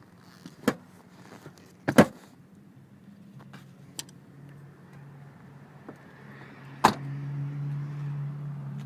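Sharp clicks and knocks from the Jeep's body being handled, the loudest about two seconds in and another about seven seconds in. After that a steady low hum sets in.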